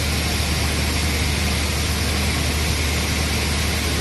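Base oil distillation plant running: a steady low hum under an even, broad hiss of machinery.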